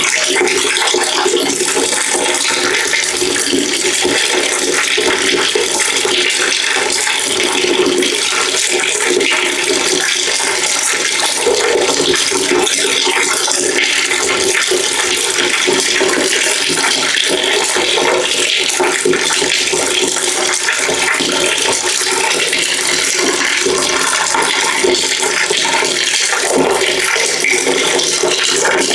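Water pouring steadily into a bucket, a continuous splashing stream without a break.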